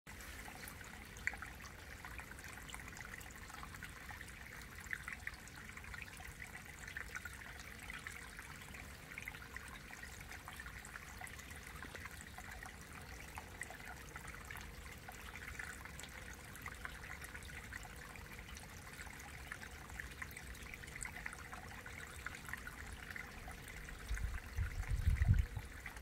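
Mountain stream water trickling and babbling over rock into a shallow pool, a steady, even sound. Low rumbling bursts come in near the end.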